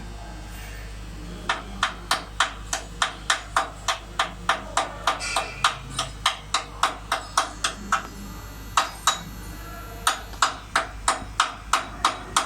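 Hammer striking steel in quick repeated blows, about three a second, each with a short metallic ring. The blows start about a second and a half in and pause briefly near the two-thirds mark.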